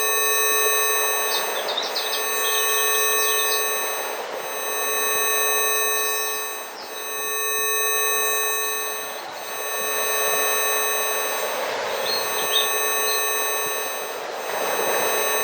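Steady electronic healing-frequency tone with overtones, fading out and back every few seconds, laid over a rushing nature-sound bed that swells and ebbs slowly, with a few birds chirping.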